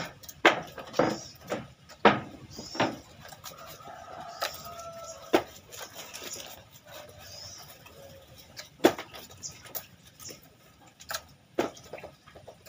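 A knife chopping fish on a wooden log chopping block: sharp irregular chops, about two a second for the first few seconds, then a few scattered strokes.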